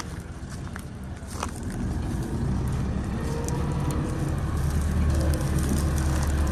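Alghazi tractor running a wheat thresher: a steady mechanical drone that grows louder about two seconds in and deepens past the middle.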